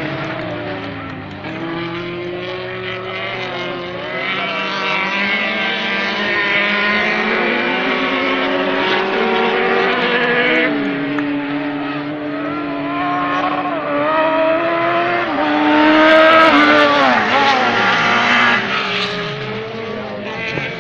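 Several autocross buggy engines racing round a dirt track, revving up and dropping in pitch at each gear change, loudest about sixteen seconds in.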